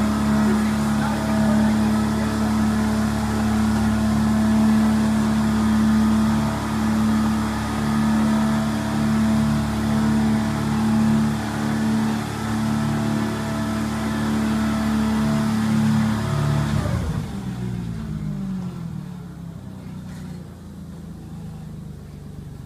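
Eight-wheeled all-terrain vehicle's engine running at a steady speed as it drives; about seventeen seconds in its pitch slides down and it winds down to a much quieter sound.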